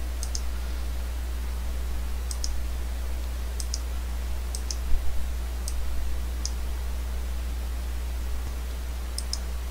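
Computer mouse button clicking several times at uneven intervals, some clicks heard as a quick press-and-release double tick, over a steady low electrical hum.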